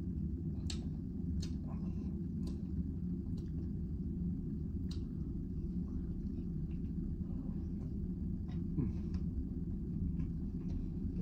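Steady low rumble of cabin background noise, with scattered short clicks and mouth sounds from eating a fried chicken sandwich and fries.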